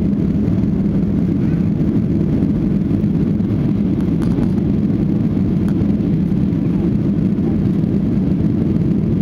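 Boeing 737-800 cabin noise during takeoff: the steady low roar of its CFM56 jet engines and rushing air, heard from inside the cabin.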